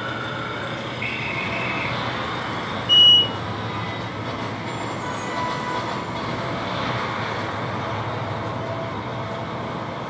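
Steady rushing, rumbling noise inside a high-speed elevator cab as it climbs. A short, high beep sounds about three seconds in.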